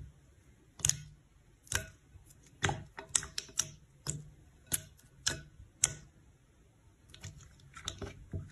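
Clear, glossy slime being poked and pressed with fingertips, giving sharp wet clicks and pops, irregularly spaced with a quick cluster near the end.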